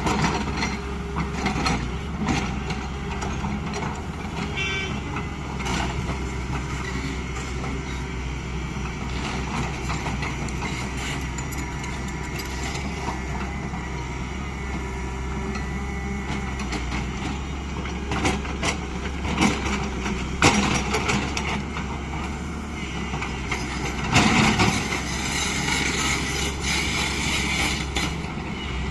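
Heavy diesel engine of working machinery running steadily, with a few loud metallic knocks and clanks in the second half.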